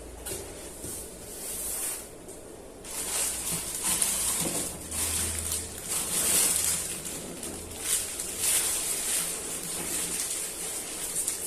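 Plastic packaging crinkling and rustling in irregular bursts as an action figure is unwrapped by hand.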